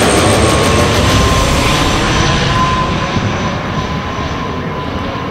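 Twin turboprop engines of an ATR 42-300 at climb power during a go-around, passing overhead and moving away: a broad rumble with a steady high whine, gradually fading.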